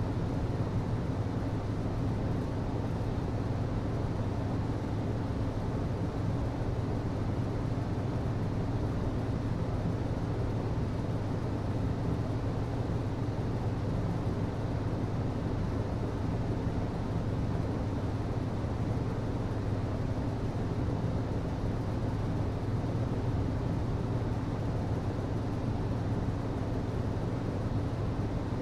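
HVAC system running steadily: a constant low hum over an even rushing noise, with no change throughout.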